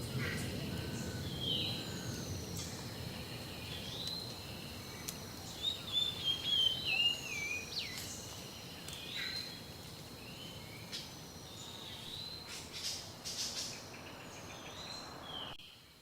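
Small garden birds chirping, with short repeated calls throughout and a quick twittering phrase about six seconds in, over a steady low background rumble.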